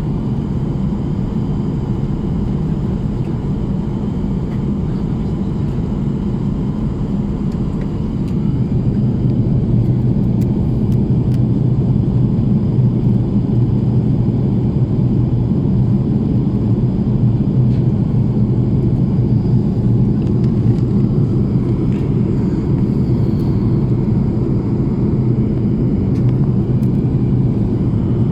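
Steady low drone of an airplane in flight, growing louder about eight seconds in.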